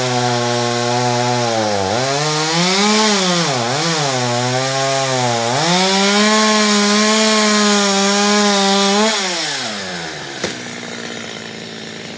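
Two-stroke chainsaw cutting mango wood, the engine pitch sagging and recovering as the bar bites, then held high and steady at full throttle. About nine seconds in the throttle is released and the revs fall away, followed by a single sharp knock.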